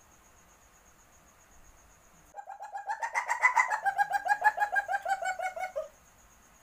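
Civet's mating call: a rapid chattering series of about eight pulsed notes a second, starting about two seconds in and lasting some three and a half seconds. Its pitch rises a little, then eases down toward the end. The uploader labels it the call of a civet in heat.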